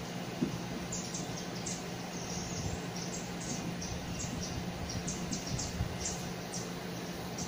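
Forest birdsong from a nature video played through a television's speakers: many short, high chirps over a steady low hum.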